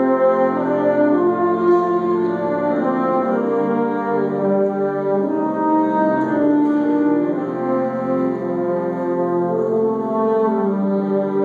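A wind symphonic ensemble playing slow, sustained chords that shift from one to the next every second or so.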